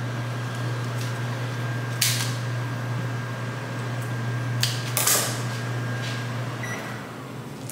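A few sharp snips of scissors cutting rose stems, about two, four and a half and five seconds in. Under them runs a steady low hum with a faint high whine, which stops near the end.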